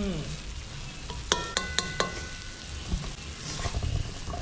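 Chicken, corn and cheese filling sizzling in a pan as it is stirred, with a metal utensil clinking against the pan four times in quick succession about a second and a half in, leaving a short ring.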